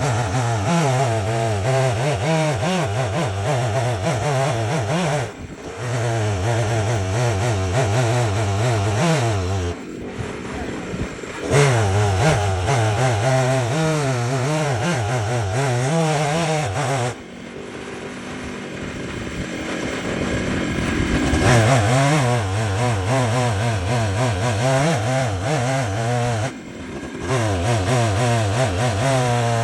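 Stihl chainsaw running at high throttle in a chainsaw mill, cutting lengthwise through a Chilean oak crotch. Its engine note wavers under load and eases off briefly three times, with a longer drop of a few seconds around the middle before it builds back up.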